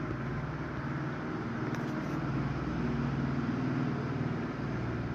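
A vehicle engine runs with a steady low hum over a background hiss, swelling a little around the middle and easing off toward the end.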